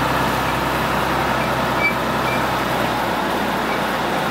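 Steady road and engine noise inside the cab of a Dodge Ram dually pickup carrying a truck camper, driving along at speed. A few faint short high chirps sound over it, and the low hum thins a little after about three seconds.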